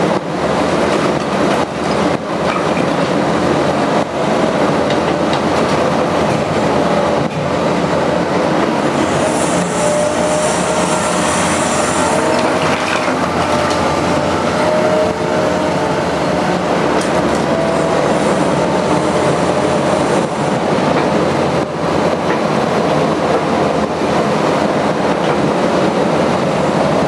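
Liebherr R 944 C crawler excavator working brick demolition rubble: its diesel engine runs steadily under load with hydraulic whine, over clanking and rattling of the bucket and debris. A high metallic squeal comes in about ten seconds in and lasts a few seconds.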